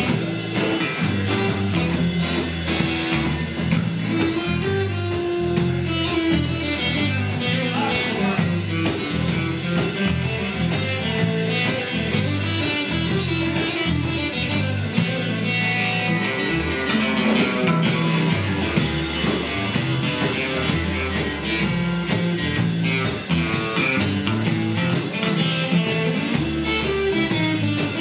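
Live blues-rock trio playing an instrumental passage: strummed acoustic guitar, electric bass and a drum kit keeping a steady beat, with no singing. The drums' high hits drop out for about a second and a half just past the middle, then the beat comes back.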